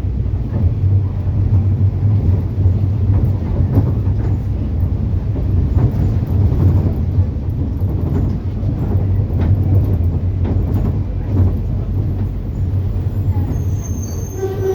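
Bus on the move: a steady low engine rumble with scattered rattles and knocks, and a brief high-pitched tone near the end.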